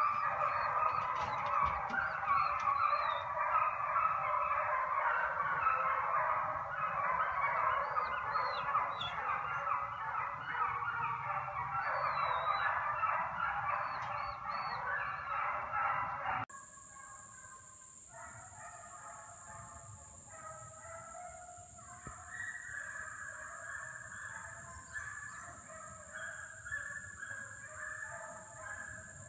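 A pack of hunting hounds baying on a running chase, many voices overlapping. About halfway through it cuts to fewer, fainter hounds, with a steady high-pitched whine behind them.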